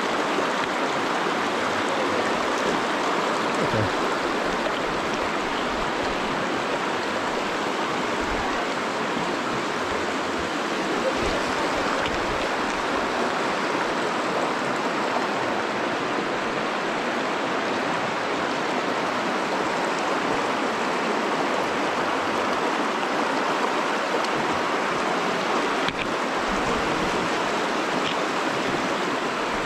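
River water flowing, a steady even rush with no let-up, with a few faint low thumps scattered through it.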